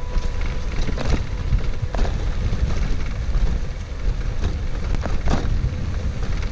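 Steady low rumble of wind noise on the microphone, with a few sharp clicks about one, two and five seconds in.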